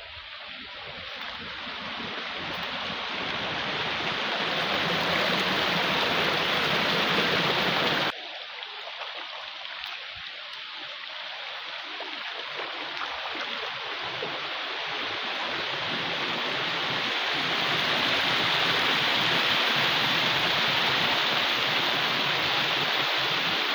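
River water rushing over rocks in small rapids, a steady rush that grows louder, drops suddenly about eight seconds in, then builds again.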